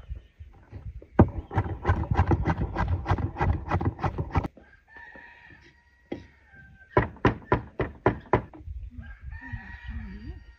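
Raw meat being chopped with a large curved knife on a wooden board: quick, even strokes, about five a second, in two runs. A rooster crows between the runs and again near the end.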